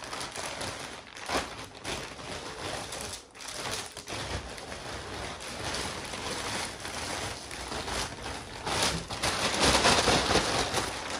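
Plastic mailer bags crinkling and rustling as hands rummage through them and pull items out, with uneven swells and the loudest rustle near the end.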